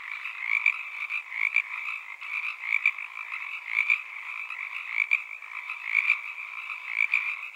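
Chorus of many frogs calling continuously, with louder individual calls standing out about once a second.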